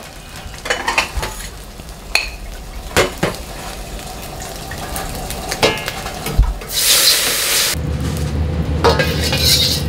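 Metal ladle clinking and scraping against a wok and plate, a few separate knocks. About seven seconds in comes a short, loud hiss, and then a gas wok burner runs with a steady low roar.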